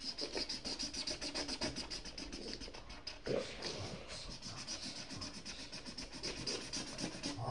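A pen scratching on paper in rapid, even strokes, writing a name on a small paper card.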